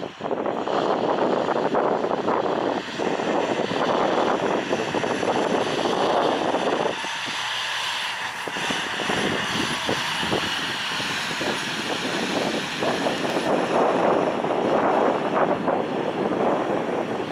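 A 2011 International WorkStar 4x4 fire tanker's diesel engine running steadily as the truck drives slowly past.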